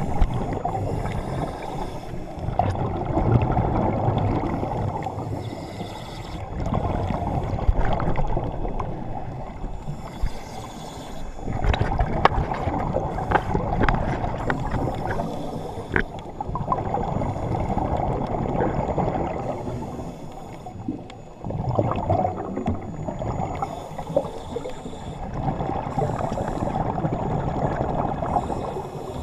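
Underwater sound of a diver recorded from below the surface: rushing and bubbling that swells and fades every few seconds, with sharp crackles now and then.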